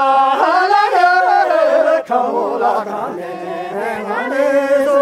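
A group of voices singing a traditional Ngari circle-dance song together, unaccompanied, with a brief break for breath about two seconds in.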